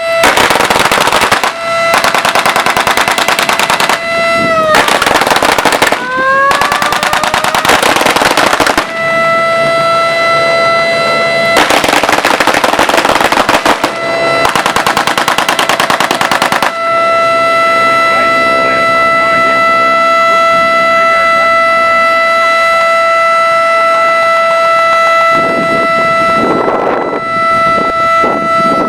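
Air-raid siren holding a steady wail, with repeated bursts of machine-gun fire over it for the first seventeen seconds or so. The siren dips in pitch and rises again about five seconds in, then sounds on alone. A rushing sound swells and fades near the end.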